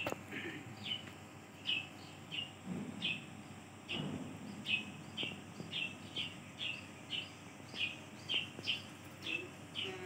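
Blue-crowned hanging parrot (serindit) calling with short, high, falling chirps, about two a second at uneven spacing.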